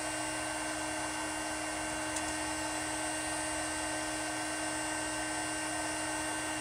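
Small handheld heat gun running, its fan motor giving a steady whine over a rush of blown air, as it shrinks heat-shrink tubing over a crimped battery-terminal wire.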